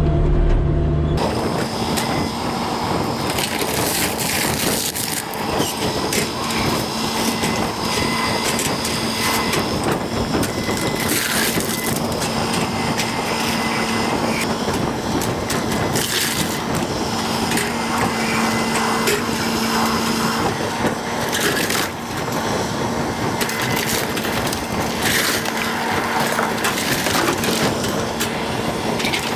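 Wooden house framing cracking, splintering and crunching as an excavator crushes and pulls it down, over the machine's steady engine and hydraulic hum. The crunching begins about a second in and runs on continuously.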